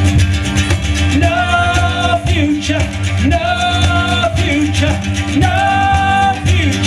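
Live acoustic folk band playing an instrumental passage of a punk song's closing section. Long held melody notes, each about a second, slide up into pitch over a steady bass.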